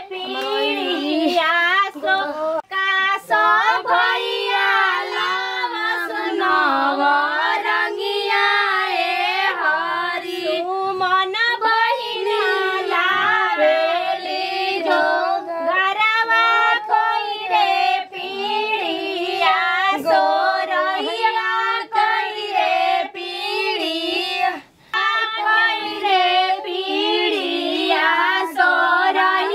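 Women singing a Bhojpuri folk song in high voices, unaccompanied, with only brief breaks between phrases.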